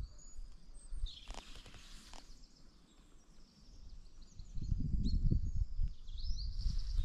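Small birds chirping in short high calls throughout. A low rumble builds about four and a half seconds in and is the loudest sound in the second half.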